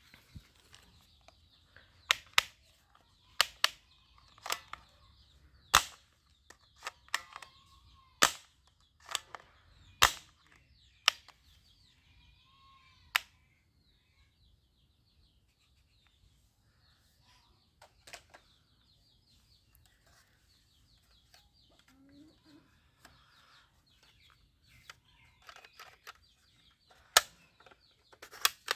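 Toy gun firing single shots, each a sharp crack. They come about a second apart for the first half, pause for roughly ten seconds, then resume in a quick cluster near the end.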